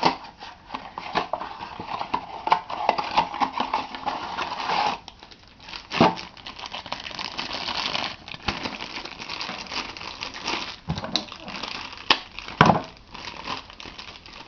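A package being opened by hand: crinkling and tearing of wrapping, with scattered clicks and a couple of sharper knocks, one about six seconds in and one near the end.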